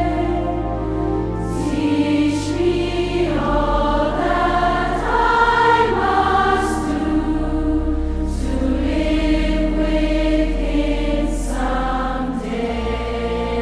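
Background music: a choir singing slow, held chords over steady low notes.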